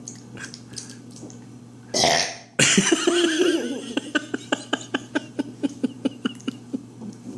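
A boy burping: a sudden loud burst about two seconds in, then a long, loud burp with a wavering pitch. It breaks up into a run of rapid croaking pulses, about five a second, that fade over the last three seconds.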